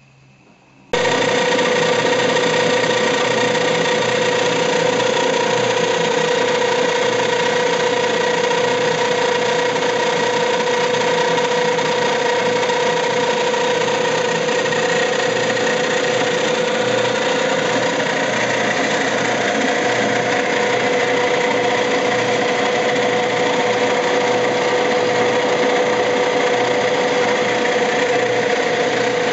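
Penagos UCBE 500 coffee pulper-demucilager running steadily, its motor and rotor giving a constant mechanical hum with a steady tone in it. The sound cuts in abruptly about a second in.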